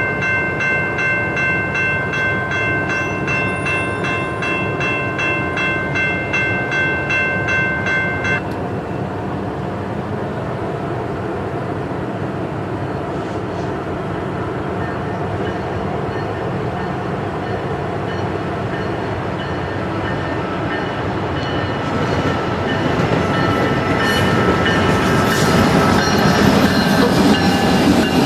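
Freight train passing. A locomotive horn sounds steadily and cuts off about a third of the way in, then the train's rumble grows louder, with wheel squeal toward the end.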